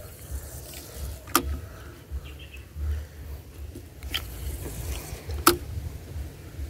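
Low rumble of wind and handling on a body-worn microphone, with three sharp clicks from the fishing tackle as the rod is cast and worked; the loudest click comes about five and a half seconds in.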